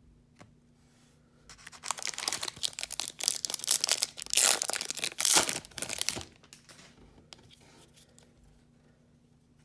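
Hockey card pack wrapper being torn open and crinkled: a loud burst of tearing and crinkling that starts about a second and a half in and lasts about five seconds, followed by a few faint clicks of cards being handled.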